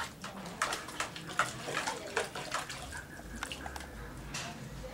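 A puppy pawing at water, making a quick run of short splashes for about three seconds that then thins out to a few softer ones.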